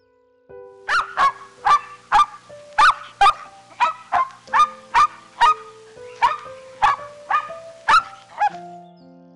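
A bird giving a rapid series of short, loud calls, about two a second, each call dropping in pitch. Background music plays underneath.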